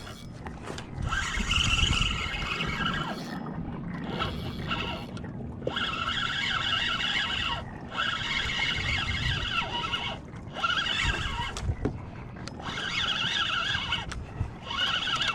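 Fishing reel whirring in repeated spurts of a second or two, with short pauses between, while a deep-hooked fish is fought from a kayak.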